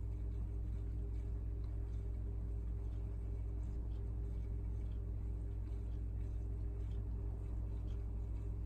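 Steady low hum of aquarium pump equipment running, with a few faint ticks.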